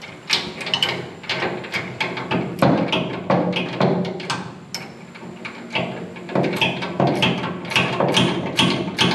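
Background music with a steady percussive beat, about two to three strokes a second.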